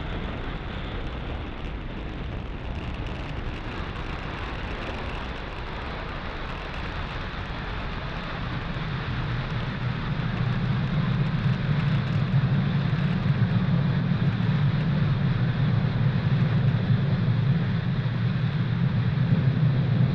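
Falcon 9 rocket's nine Merlin 1D first-stage engines firing during ascent: a steady rushing noise. It grows louder, with a strong low rumble coming in about nine seconds in.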